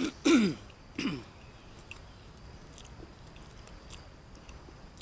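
A man clears his throat twice while eating: a loud one near the start and a shorter one about a second in, each dropping in pitch. Faint chewing follows.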